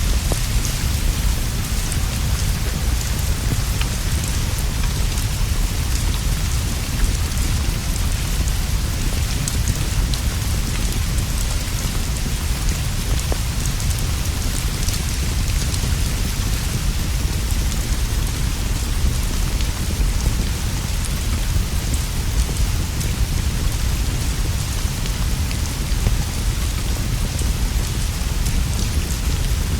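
Steady, even rainfall on leaves and a roof, with a constant low rumble beneath it and faint scattered ticks of drops.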